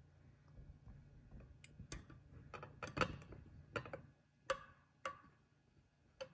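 Scattered light clicks and taps from handling, about a dozen, a few with a short ringing, over a faint low hum that fades out about two-thirds of the way through.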